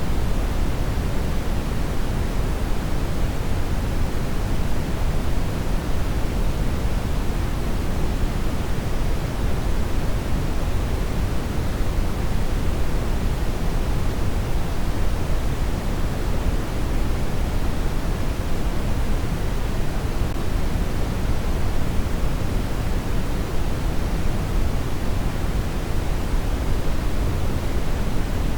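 Steady synthetic noise, an even, unchanging rush that is heaviest in the bass and thins out toward the treble, with no tones or events.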